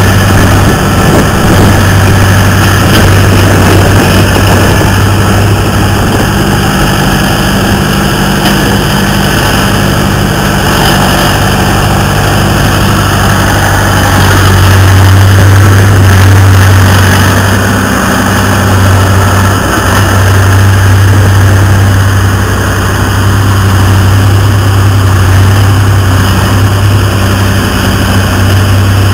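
Hydraulic excavator's diesel engine running close by, a steady low hum that swells in loudness a couple of times as the machine works.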